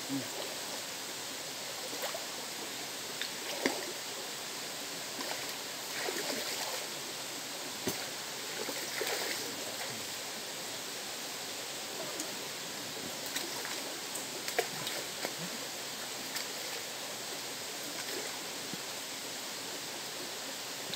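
River water flowing steadily, a continuous rushing noise, with a few brief sharp sounds scattered over it.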